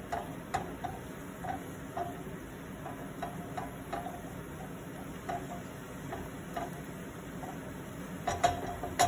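Spatula stirring frying onion, garlic and tomato paste in a frying pan, knocking lightly against the pan about twice a second, with a couple of louder knocks near the end.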